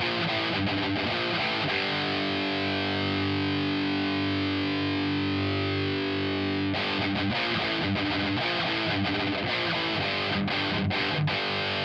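Heavily distorted electric guitar through the Audiority L12X amp-sim plugin, modelled on a Marshall JCM and boosted by an SD overdrive, its tone turned back a little. A chord is struck and held ringing for about seven seconds, then a run of shorter chords and notes follows.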